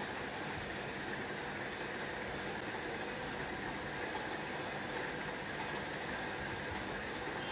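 Steady droning background noise with a faint hum and hiss, even throughout.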